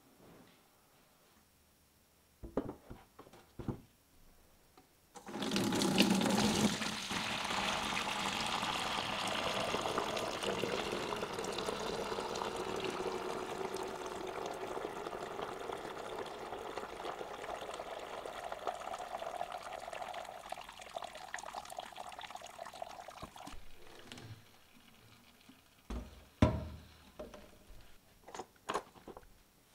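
Wort poured from a large pot through a mesh strainer of spent barley into a plastic fermenter bucket: a steady splashing pour that starts about five seconds in and runs for nearly twenty seconds, its pitch rising as the bucket fills and the flow thinning toward the end. A few sharp knocks and clatters follow near the end as the pot is handled.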